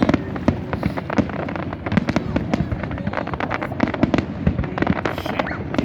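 Aerial fireworks show: a dense, continuous barrage of bangs and crackles, many per second.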